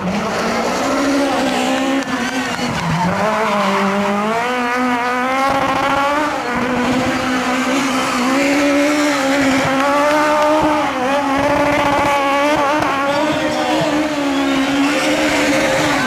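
Peugeot 306 Maxi rally car's high-revving two-litre four-cylinder engine driven hard, its note climbing and dropping again and again through gear changes and throttle lifts.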